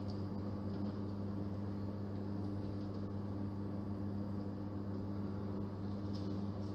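Steady low electrical hum, a constant drone with a faint hiss above it.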